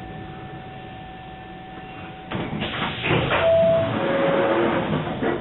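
London Underground District Line train standing at a platform, a steady hum with a thin tone, then about two seconds in its sliding passenger doors close with a sudden loud rush. Two short tones follow, the second lower.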